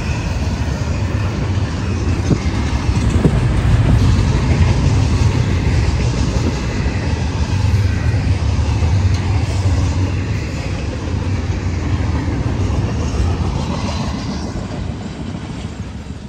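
Double-stack container train's well cars rolling past: a steady low rumble with wheel clatter on the rails, easing off over the last few seconds.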